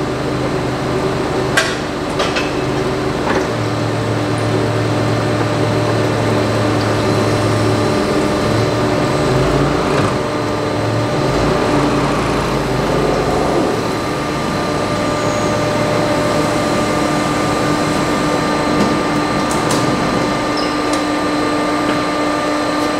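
A forklift engine runs steadily as it draws a tractor's final drive housing off the axle, its pitch shifting low now and then. There are a few sharp knocks in the first few seconds.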